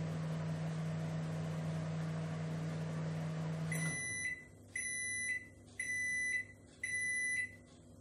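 LG MH-6344B microwave oven running with a steady hum and no arcing or crackling from its newly replaced mica waveguide cover. About four seconds in the hum stops and the oven gives four high beeps, about one a second, signalling the end of the cooking cycle.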